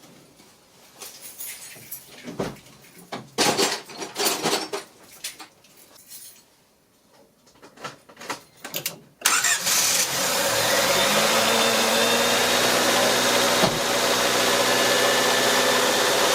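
A few clicks and knocks. Then, about nine seconds in, a 1993 Honda Civic's engine suddenly fires and settles into a steady idle. It starts on a new ignition coil, having cranked without starting for lack of spark.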